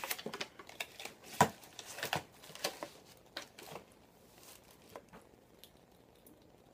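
A perfume box and bottle being worked open by hand: a run of sharp clicks, taps and crinkles of cardboard and plastic packaging, the loudest click about a second and a half in, thinning out to a few faint ticks after about three seconds.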